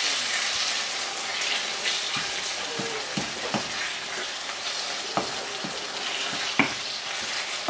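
Sweet potato leaves and chopped peppers sizzling in oil in a nonstick frying pan while a wooden spatula stirs them, with a few sharp knocks of the spatula against the pan.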